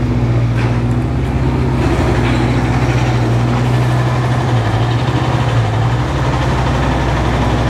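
A large engine running steadily with a low hum, which dips slightly in pitch about five seconds in, over a wash of outdoor noise.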